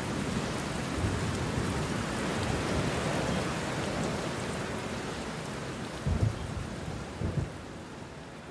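A steady wash of rain-like noise slowly fading out, with two short low rumbles about six and seven seconds in.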